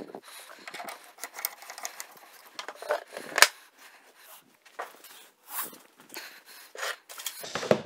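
Handling noises from a new MIG welding torch lead: the cable rubbing and knocking lightly and scattered small clicks as its Euro connector is pushed into the front socket of the welder and tightened, with one sharp click about three and a half seconds in.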